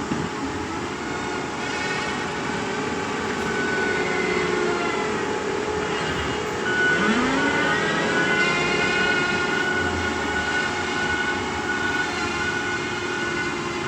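Excavator diesel engine and hydraulics running under working load: a steady drone with whining tones that dip and rise in pitch about halfway through, then hold steady, a little louder.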